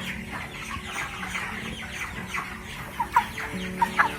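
A flock of 27-day-old broiler chickens clucking and peeping continuously, with a few sharper, louder calls about three seconds in.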